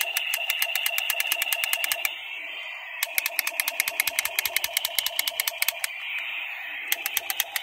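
Blue plastic toy police revolver making its rattling gun sound: rapid clicks, about ten a second, over a buzzing tone. It pauses about two seconds in, starts again a second later, stops near six seconds and gives a short burst near the end.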